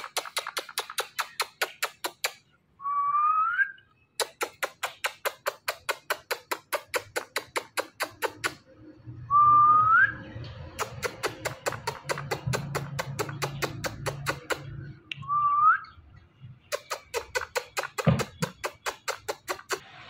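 Rapid lip-kissing sounds, about six a second, in runs lasting several seconds, made to a pet ringneck parrot. The runs are broken three times by a short rising whistle.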